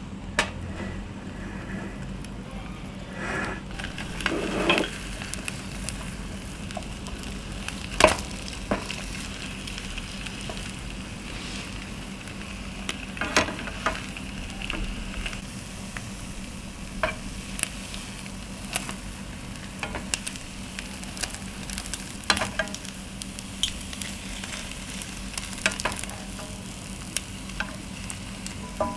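Egg-soaked bread slices and beaten egg sizzling steadily in a nonstick frying pan, with scattered sharp clicks and a few scrapes as a plastic spatula works and folds the setting egg.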